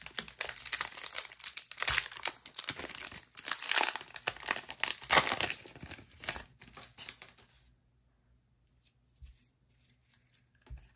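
Wrapper of a 2023 Panini Score football card pack being torn open and crinkled, a dense crackling that stops about seven and a half seconds in. Faint taps follow near the end as the stack of cards is handled.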